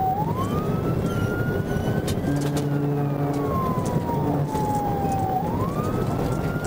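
Police siren on a slow wail, its pitch rising and falling about once every five seconds, over the steady rush of road and engine noise at highway speed. A brief low steady hum comes in a couple of seconds in.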